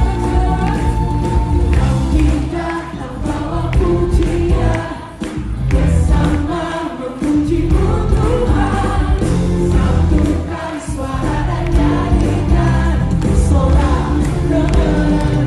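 Church choir singing a gospel worship song with full instrumental accompaniment and a strong bass.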